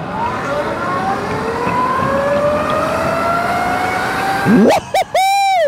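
Solar Eclipse 2.0 electric dirt bike accelerating hard from a standstill: its motor whine climbs steadily in pitch over wind and tyre noise. Near the end a loud shout cuts in.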